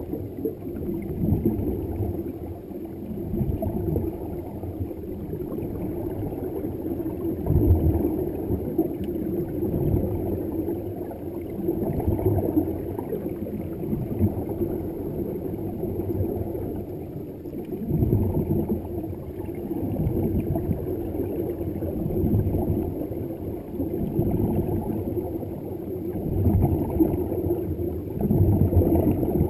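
Muffled underwater gurgle of air bubbles from scuba divers' exhaled breath, rising past the camera, with louder bubbling surges every several seconds.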